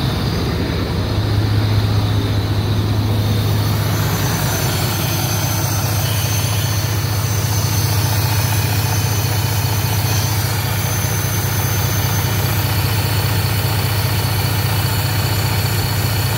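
Navistar A26 inline-six diesel engine of an International LT truck idling with a steady low drone.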